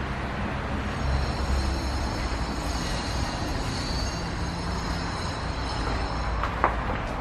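A heavy vehicle rumbling past, with a faint high squeal over the middle few seconds, and one sharp knock near the end.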